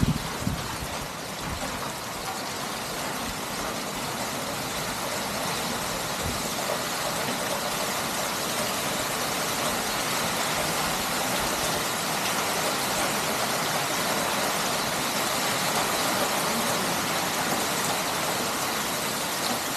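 Heavy rain falling steadily on a wet paved courtyard and roofs: a dense, even hiss, swelling a little in the middle.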